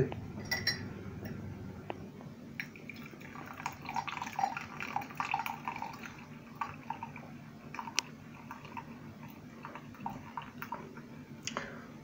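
Fruit tea pouring from a stainless steel pot through a tea strainer into a large glass: a soft, faint trickle of liquid, with a few light clinks.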